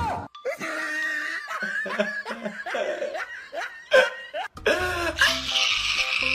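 A person laughing in repeated bursts of giggles and chuckles.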